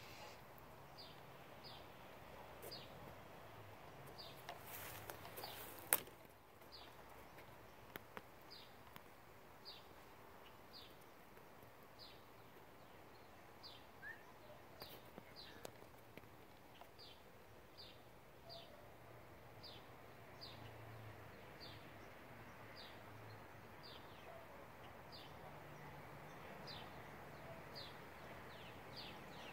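A small bird repeating a short, high, falling chirp about once a second over faint outdoor background. A single sharp click comes about six seconds in.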